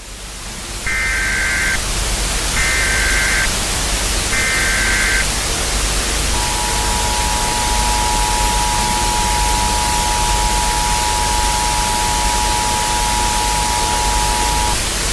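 Simulated Emergency Alert System signal over a steady loud static hiss: three short bursts of the digital header data in the first five seconds, then the steady two-tone attention signal, held for about eight seconds and stopping just before the end. These are the tones that announce an emergency alert message.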